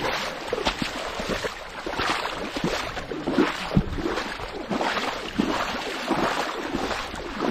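Water splashing and sloshing in irregular surges, with wind buffeting the microphone.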